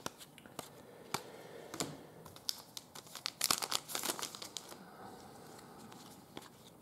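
Crinkling packaging and light clicks of 2015 Panini Donruss Soccer trading cards being handled, busiest about three and a half to four seconds in.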